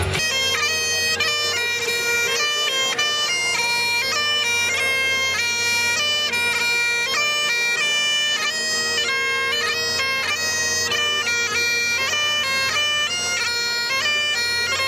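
Bagpipes playing a quick melody over a steady, unbroken drone.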